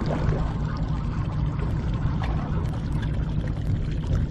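A boat's engine running, a steady low drone, with water sloshing against the hull.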